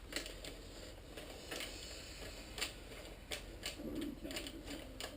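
Scattered light clicks and taps of hand work on a motorcycle's plastic tail fairing, as small screws are handled and driven in with a hex tool.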